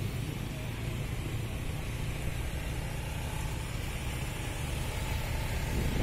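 Small motor scooter engine running steadily with road noise, heard from a scooter riding along a lane.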